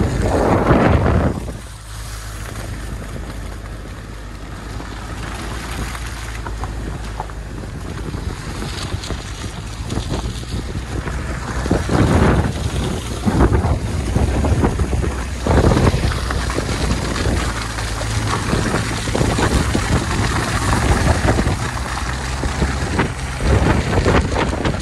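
Wind buffeting an outside-mounted microphone on an SUV driving a snowy track, over the steady low drone of the vehicle and its tyres. Several louder rushes of noise come at the start, around the middle and near the end as the vehicle pushes through snow and scrub.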